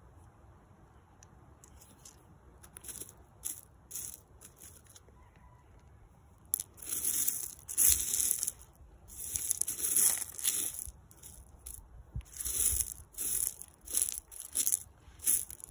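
Fingers scraping and shifting loose gravel and small rock fragments: a series of short rustling crunches, a few faint ones at first, then louder and more frequent from about halfway.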